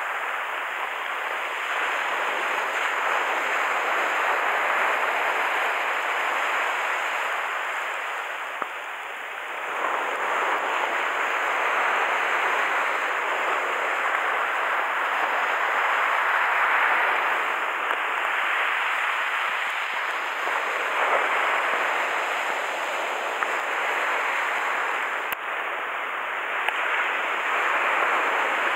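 Surf breaking and washing over a dark gravel beach: a steady rushing hiss that swells and eases every few seconds.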